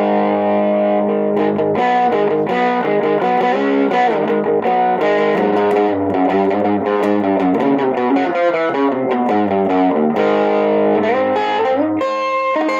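1960 Guild T100 hollow-body electric guitar played through a tube amp with a little gain: lightly overdriven chords and single-note lines, with notes sliding in pitch a few times.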